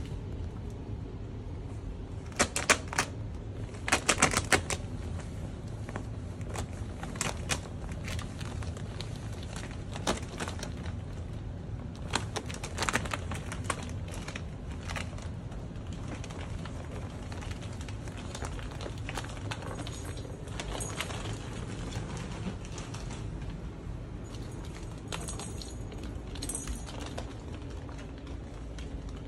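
Ferrets scrambling through a clear corrugated plastic tube, the ribbed plastic clattering in irregular flurries of rapid clicks, loudest a few seconds in.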